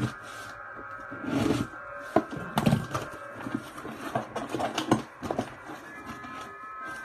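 A cardboard shipping box being opened and its contents handled: a run of rustling, scraping and short knocks.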